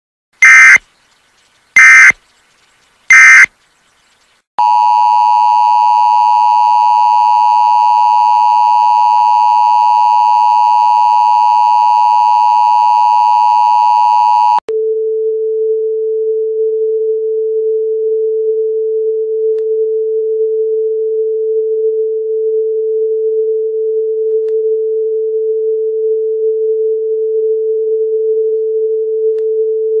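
Emergency Alert System tones: three short digital data bursts, then the two-tone attention signal held for about ten seconds, which cuts off abruptly and gives way to a single steady lower test tone that goes on to the end.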